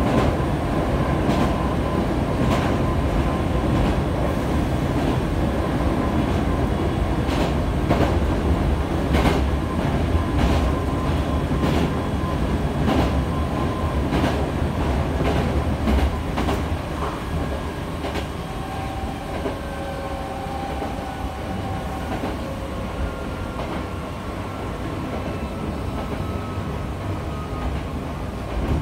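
Hankyu 8000 series electric train running, heard from inside the car just behind the cab, with wheels clicking over rail joints every second or so. In the second half it runs quieter, with a faint whine that falls gently in pitch as it slows toward the station.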